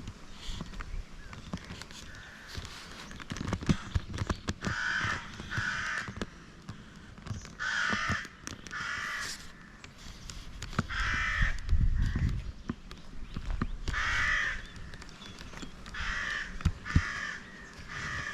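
A crow cawing repeatedly, mostly in pairs of harsh calls a second or so apart, with scattered clicks and a low rumble underneath.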